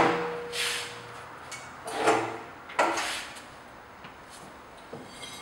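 Welded steel tubular frame of a plasterboard dolly cart ringing after being set down on its castors, followed by a few knocks and scrapes as the steel parts are handled.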